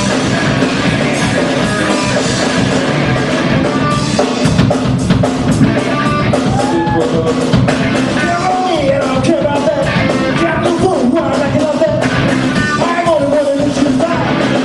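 Rock music with drums, guitar and a singing voice, loud and continuous.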